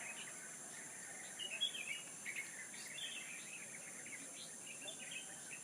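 Small birds chirping and twittering in short, quick phrases, the loudest about a second and a half in, over a steady high-pitched hiss.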